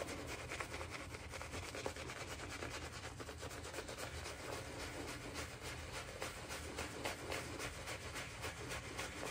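Synthetic-knot shaving brush face-lathering shaving soap over stubble: a steady run of quick, soft bristly rubbing strokes.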